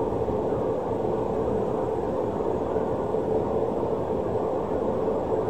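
Hot air rework station blowing a steady stream of hot air, its fan giving an even rushing hum, while it reflows the solder joints of an iPhone 11 logic board's interposer.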